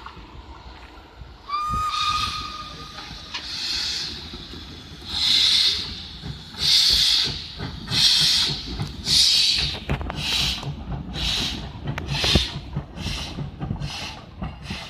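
SJ E2-class steam locomotive no. 1122 gives one steady blast on its steam whistle, then starts off with loud exhaust chuffs that begin slow and come steadily faster as it picks up speed.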